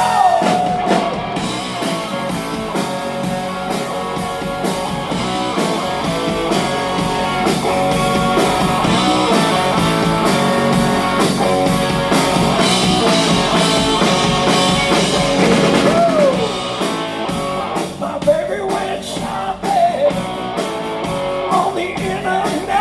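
A live blues-rock band plays an instrumental passage between verses: an electric guitar plays lead over drums and bass. The guitar bends its notes about two-thirds of the way through.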